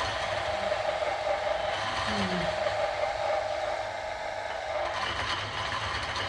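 Half-horsepower electric motor running and driving an old Selig Sonnenthal lathe by its belt, a steady mechanical hum and whirr, while pressure is put on it to see whether it will take more load.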